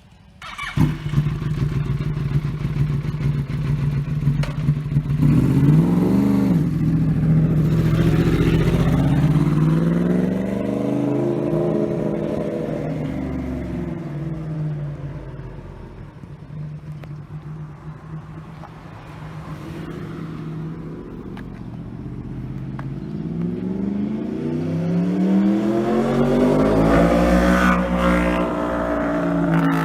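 2013 Yamaha R1 crossplane inline-four through a Toce aftermarket exhaust. It holds a steady note, then accelerates hard through several gears with repeated rising sweeps. It fades, then comes back louder with more rising revs near the end.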